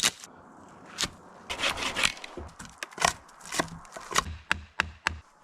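Wood being worked by hand: irregular scraping and rubbing strokes on wood, with several sharp clicks in the second half.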